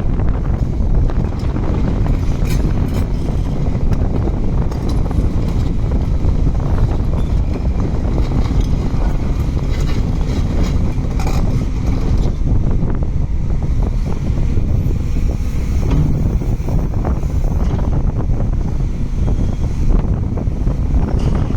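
Liebherr R954C HD hydraulic excavator's diesel engine running steadily, with wind buffeting the microphone.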